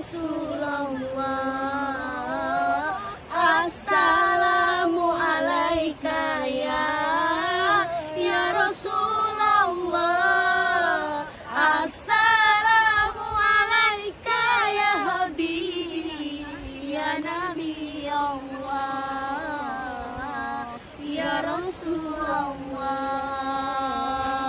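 Voices singing a sholawat, an Islamic devotional song praising the Prophet, in a slow, ornamented melody with long, wavering held notes.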